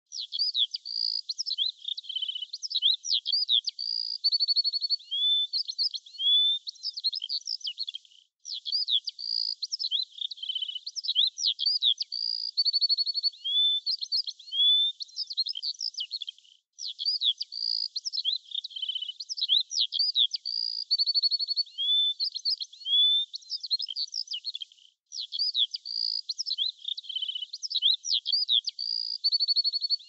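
Several small songbirds chirping and singing, a busy mix of high chirps, quick trills and upslurred whistles. The same stretch of song repeats about every 8 seconds, with a brief dropout between repeats: a looped recording.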